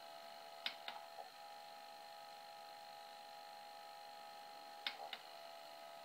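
Sony Betamax SL-F60 video recorder mechanism running with a steady faint whine made of several tones, broken by two pairs of quick mechanical clicks, one pair about a second in and another near the end.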